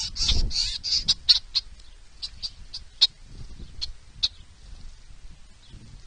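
A feeding flock of birds, mostly red-winged blackbirds, giving a quick flurry of short, sharp chip calls with wing flapping in the first second and a half, then scattered single chips.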